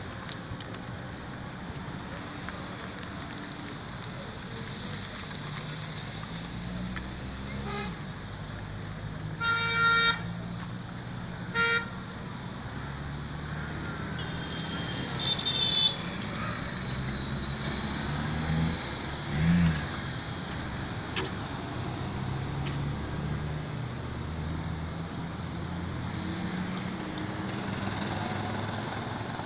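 Road traffic with vehicle engines running and passing, and car horns tooting several times: a longer toot about ten seconds in and shorter ones near twelve and sixteen seconds.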